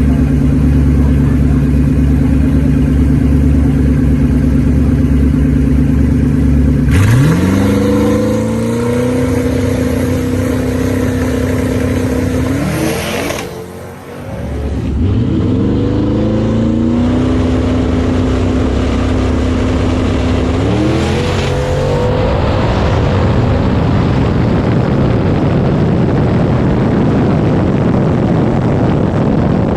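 Drag-racing street car engines idling steadily, then launching about seven seconds in. The engine pitch sweeps up and levels off several times as the gears change, and it briefly falls away near the middle before coming back.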